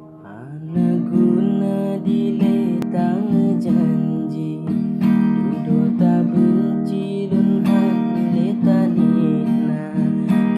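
Acoustic guitar strumming chords in a steady rhythm, the song's instrumental introduction. It starts after a short lull about a second in.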